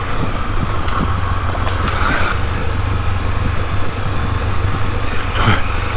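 Honda XRE300 single-cylinder motorcycle engine running steadily at low speed, with steady wind and road noise on a helmet-mounted microphone, while riding a slippery mud-and-gravel track.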